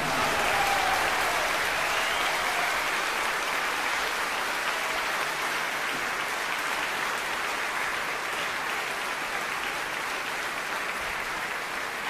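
Audience applauding, dying away slowly.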